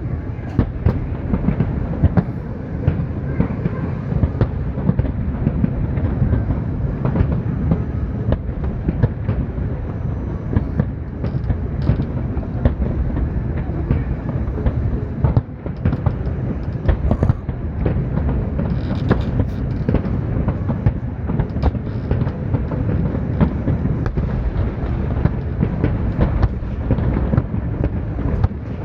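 Continuous fireworks barrage: a steady low rumble of shell bursts with many sharp bangs and crackles layered over it.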